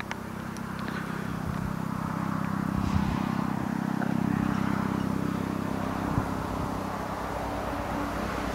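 Eurocopter EC135 helicopter running, a steady drone of rotor and twin turbines that grows louder over the first few seconds.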